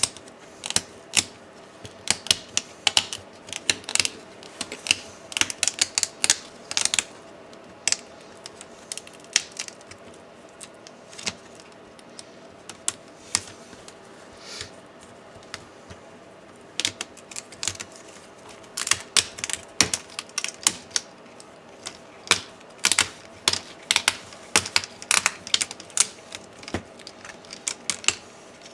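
Plastic laptop screen bezel being pried off by hand: an irregular run of sharp plastic clicks and snaps as its edge is worked loose, thinning out for a while in the middle.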